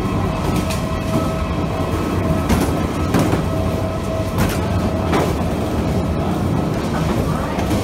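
Wheels of a rolling suitcase and footsteps rumbling along the hard floor of an airport boarding walkway, with scattered knocks as the wheels cross floor joints. A steady faint hum runs underneath.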